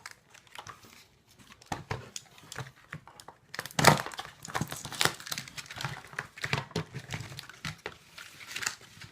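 Packaging being crinkled and rustled by hand as a boxed product is unpacked, in irregular bursts, the loudest about four and five seconds in.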